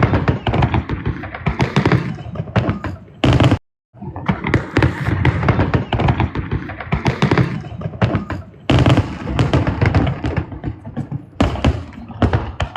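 Fireworks bursting in rapid succession, with many overlapping bangs and crackles. The sound cuts out completely for a moment about a third of the way in.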